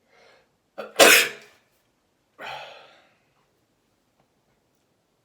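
A person sneezing hard once about a second in, with a short catch of breath just before it, then a second, weaker explosive exhale about a second and a half later.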